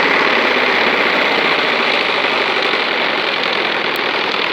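Rapid, steady buzzing flutter of a BMX bike's spokes slapping against something taped to the frame, a home-made motorbike-engine noise that is very loud. It eases off slightly near the end.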